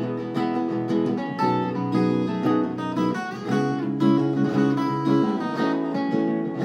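Instrumental music: acoustic guitar plucked and strummed in a steady rhythm, with no singing.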